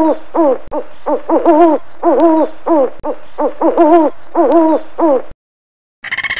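Animal calls: a rapid run of short pitched notes, each rising then falling, coming in bursts. They cut off about five seconds in, and after a brief silence a higher, harsher animal sound starts near the end.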